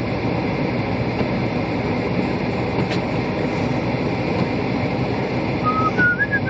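Steady rumble and hiss inside a moving car: the heater fan blowing over engine and road noise. Near the end a thin, wavering high squeal comes in.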